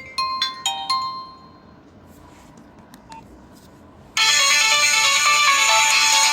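Nokia 1661 ringtones playing from the phone's loudspeaker. A chiming melody of short, bell-like notes dies away about a second in, and a few faint clicks follow in a pause of about three seconds. A different ringtone, louder and denser, then starts abruptly about four seconds in.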